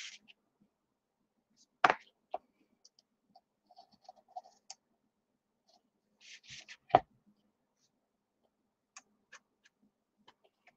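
Paper and chipboard being handled on a craft table: short scratchy rustles and light clicks, with two sharp knocks, one about two seconds in and one about seven seconds in.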